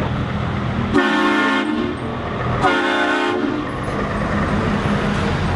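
Two loud blasts of a vehicle horn, each under a second long, about a second and a half apart, over a steady low engine rumble.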